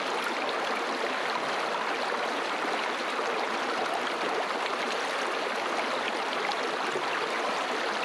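River water flowing over rocks: a steady, even rush of moving water.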